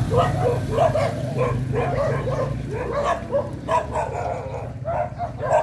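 A dog yapping and whining in a quick run of short calls, about two or three a second, over a steady low hum.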